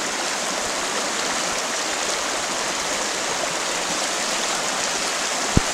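Fast-flowing river rapids running over rocks, a steady, even rush of water close to the microphone. A single sharp click near the end.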